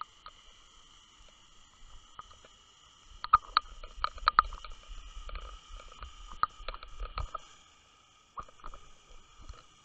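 Sound picked up by an underwater camera in its housing: a steady high whine, with a flurry of sharp clicks and knocks and low rumbling from about three to seven seconds in, and a few more clicks near the end.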